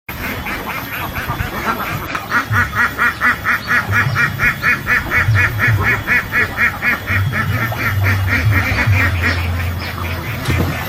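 Ducks quacking in a fast, regular run of calls, about four or five quacks a second, tailing off near the end, over a low rumble.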